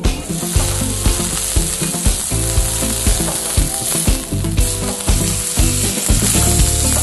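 Alpaca loin searing in a hot steel frying pan, sizzling steadily as it is turned with metal tongs: the outside is being sealed at fairly high heat to form a crust without cooking the inside.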